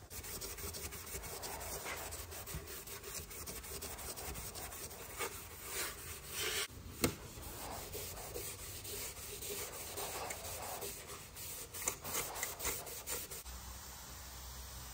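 A maroon abrasive scuff pad is rubbed by hand back and forth over the painted sheet steel of a Nissan S13 Silvia's engine bay, scuffing the surface before paint. There is a rapid, uneven run of scrubbing strokes, one sharp tap about seven seconds in, and the rubbing stops near the end.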